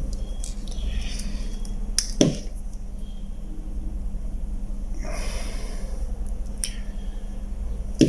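Handling noise at a workbench: a soldering iron and a plastic car remote key shell being handled, with a sharp knock about two seconds in and another at the end, over a steady low hum.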